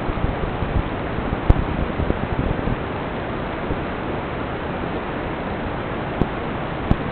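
Steady, even rushing hiss with no motor tone in it, broken by a few sharp clicks: one about a second and a half in and two more near the end.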